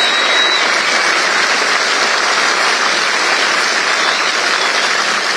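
Large crowd applauding steadily, with a brief high whistle in the first second.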